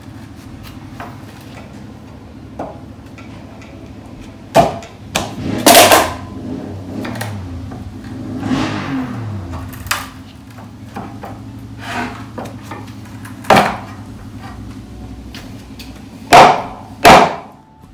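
Claw hammer striking the boards of a wooden pallet to knock pieces off, in sharp single blows at irregular intervals, with a hard pair close together near the end. About halfway through there is one longer, drawn-out sound.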